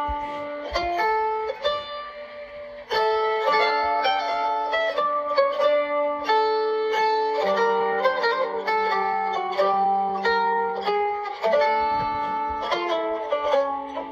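Instrumental music on plucked strings: a melody of many short, quickly struck notes over a lower line.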